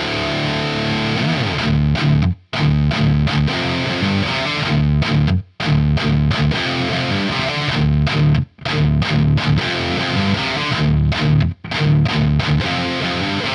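Distorted electric guitar through a Laney GH100TI all-tube amp head with no boost pedal in front, mids scooped and presence and treble up, playing a chugging thrash riff. The riff stops briefly about every three seconds. It has a crunchy, slightly fuzzy distortion and a lot of sag in the low end.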